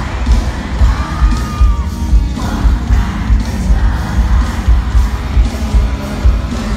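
Live band playing amplified pop-rock from within the audience, the bass booming with a steady heavy beat. A single note is held about a second in, over faint crowd voices.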